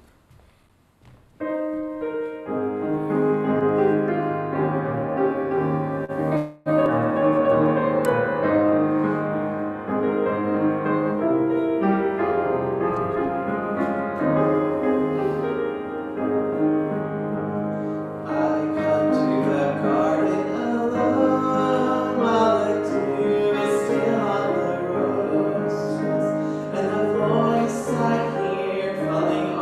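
Piano music starting about a second and a half in, with a brief break in the sound a few seconds later.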